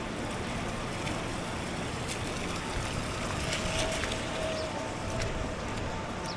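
Steady street ambience of road traffic running past, an even wash of noise with faint steady tones and a few light clicks.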